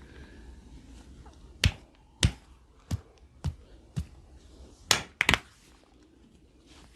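Sharp percussive hand strikes of a massage, slapping or clapping on the body: five at a steady pace of a little over one every half second, then a quicker burst of three.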